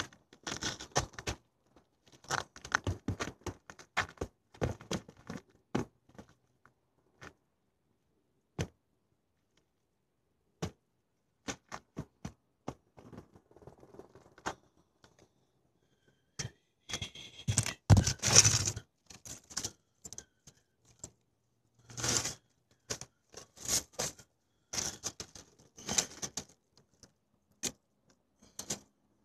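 Irregular clicks, scrapes and rustling close to the microphone, the handling noise of the recording phone or camera. The loudest bout of rustling comes about halfway through, with more scattered clicks and scrapes later.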